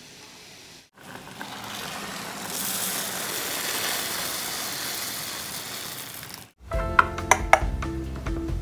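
Broth boiling in a pot as dry rice grains are poured in, an even hiss lasting about five seconds. Near the end it cuts to background music with a beat and clear, bell-like notes.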